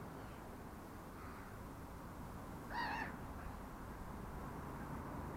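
A gull gives one short, harsh call about three seconds in, with a fainter call about a second in, over steady background noise.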